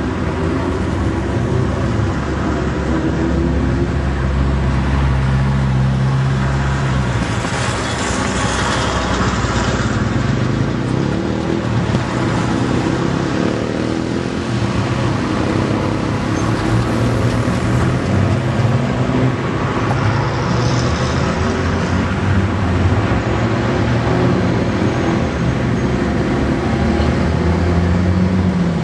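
Motorcycle and car engines running slowly in the street, a steady low rumble, with brief hissing rushes a few times.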